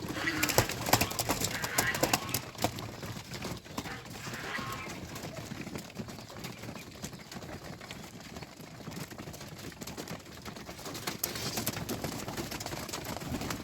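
Geese and ducks at feed: many quick clicks and taps, busiest at the start and again near the end, with a few short calls in the first seconds and once more about four and a half seconds in.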